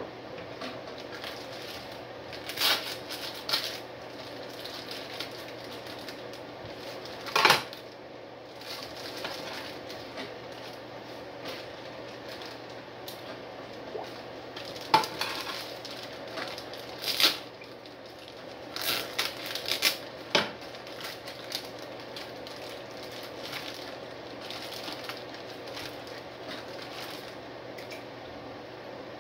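Knocks and clatters from handling a large stainless steel stock pot on the stove while whole chickens are put into it, a handful of sharp hits with the loudest about seven seconds in, over the steady hum of a room fan.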